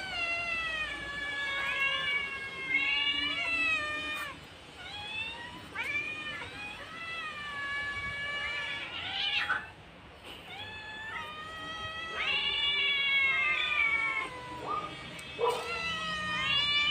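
Domestic cats meowing over and over, long drawn-out calls one after another, sometimes two at once, with a short lull about ten seconds in. They are begging for food that is being readied for them.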